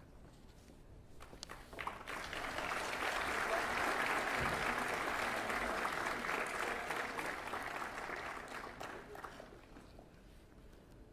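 Audience applauding, swelling up about two seconds in and dying away near the end.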